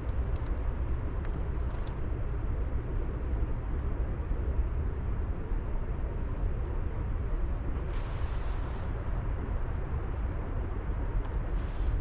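Steady low outdoor background rumble, with a few faint, brief high chirps from black-capped chickadees.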